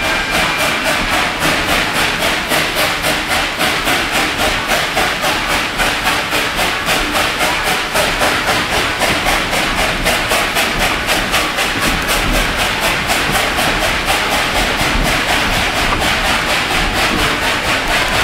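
Narrow-gauge steam train running at steady speed, heard from an open-sided passenger car: a loud, even beat of about five a second.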